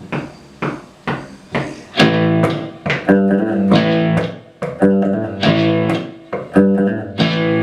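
Opening of a rock song: the guitar plays a few short, separate strokes, then about two seconds in it settles into rhythmic strummed chords.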